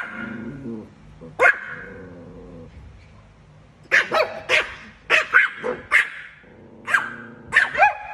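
Small Chihuahua barking: two single sharp, high yaps, then from about four seconds in a quick run of about ten barks in close succession.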